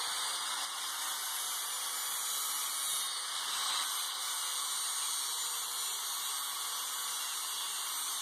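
Angle grinder grinding the welded quarter-inch steel plate of a hammer head: a steady hissing grind with a faint steady whine underneath.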